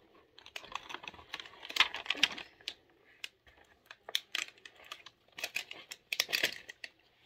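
Small plastic toy parts and packaging being handled: irregular clicks, taps and crinkles, in clusters with short pauses between.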